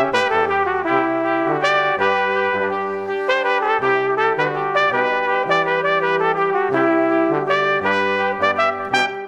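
Background music: an instrumental track with a melody moving note by note over a changing bass line.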